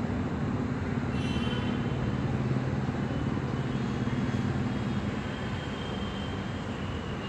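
Steady rumble of passing vehicles with a low engine drone, easing slightly about five seconds in.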